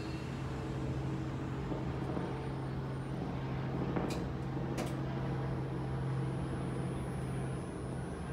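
Diesel train's engine running with a steady low hum and rumble, and two sharp clicks about four and five seconds in.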